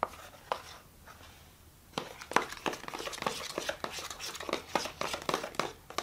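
Slime being stirred with a pencil in a plastic tub as the boric acid activator makes it set: rapid sticky clicks and pops with the pencil knocking the tub, picking up about two seconds in and running on quickly and unevenly.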